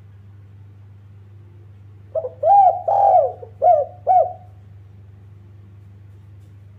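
Spotted dove (tekukur) cooing: a single phrase of about five coos, a short note and then longer arched ones, starting about two seconds in. A steady low hum runs underneath.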